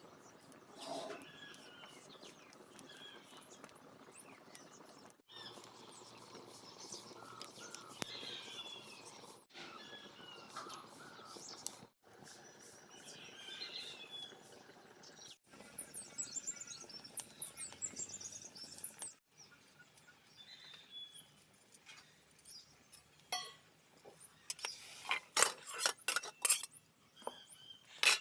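Birds chirping, with many short, quick calls, broken off by abrupt cuts every few seconds. Near the end come a series of sharp knocks or clicks, louder than the birdsong.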